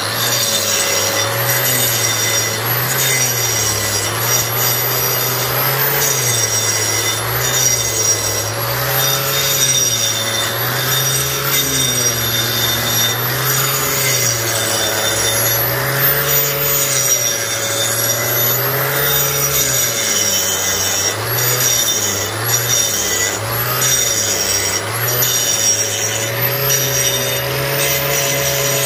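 Angle grinder with a dust shroud grinding a concrete floor. Its motor whine rises and falls in pitch as it is pressed down and moved along, over a steady hum from the vacuum cleaner drawing dust through the shroud.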